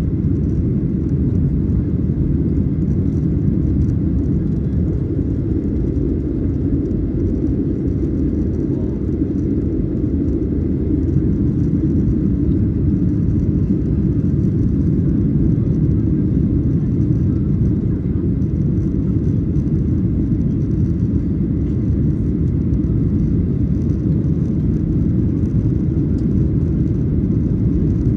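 Boeing 737-800 on takeoff: its CFM56 jet engines and the rushing air make a steady low rumble that holds even throughout.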